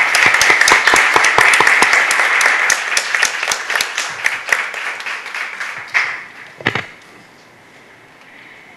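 Audience applauding: dense clapping that thins out and dies away about seven seconds in. There are a couple of heavier knocks near the end.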